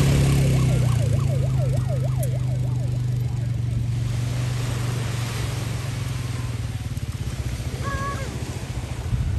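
Quad bike engine running with a steady low drone that slowly fades as it moves away. For the first few seconds a tone warbles quickly up and down, about three times a second, like a siren yelp, and a short steady tone sounds near the end.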